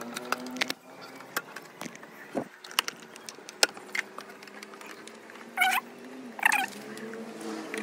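Light clicks and taps of a plastic motorcycle body panel being handled and fitted against the fuel tank, over a faint steady hum. A little past halfway come two short, high-pitched calls, close together, louder than the tapping.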